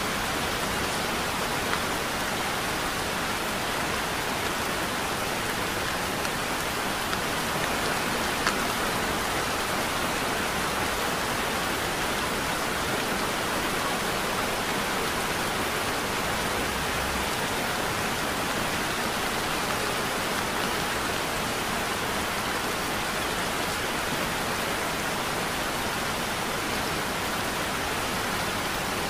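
Heavy rain falling in a steady, even hiss, with an odd slightly louder drop now and then.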